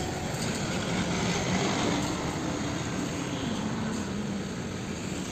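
Steady engine-like vehicle rumble with hiss and a faint low hum.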